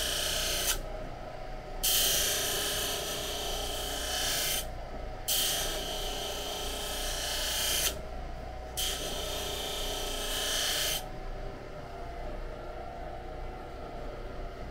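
Knife blade, held in a clamp, pressed against a spinning fine-abrasive wheel on a Baldor buffer to polish out scratches: a hissing rasp in four passes, the last ending about eleven seconds in. The motor hums steadily underneath.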